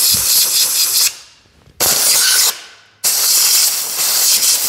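Compressed-air blow gun hissing in bursts as it blows packed dirt out of the bolt holes of a tractor PTO housing. One blast trails off about a second in, a short blast follows near two seconds, and a longer one starts about three seconds in.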